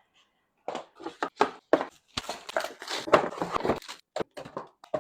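Irregular clicks, knocks and rustles of the Dyson V15's hard plastic parts and packaging being handled, starting about a second in and coming thick and fast for a while in the middle.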